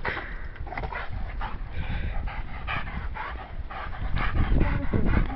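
Dog panting hard in quick, noisy breaths, about two or three a second, winded from jumping up at a hanging rope toy.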